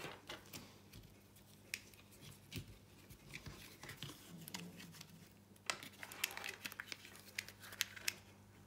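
Faint, scattered clicks and rattles of plastic as the spool of an opened Flexi retractable dog leash is handled and turned in its housing to wind its return spring.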